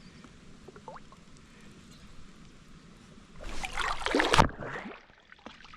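Water splashing and sloshing against a kayak in one burst of about a second, starting about three and a half seconds in, over a faint steady hiss.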